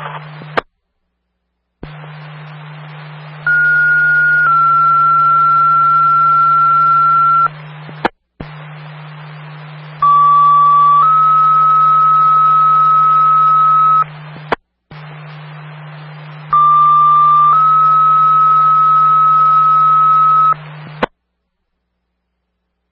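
Two-tone sequential fire paging tones coming over a radio scanner, alerting fire crews to a rescue call. There are three keyed transmissions, each a burst of radio hiss and low hum. In each, a short tone of about a second steps to a longer steady tone of about three to four seconds, and then the carrier cuts off abruptly.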